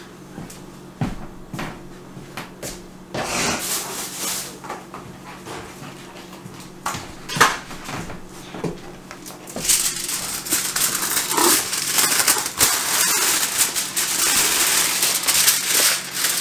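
Aluminium foil being pulled from its box and crinkled over a foil baking pan: a few scattered clicks and rustles at first, then from about ten seconds in a dense, continuous crackling rustle.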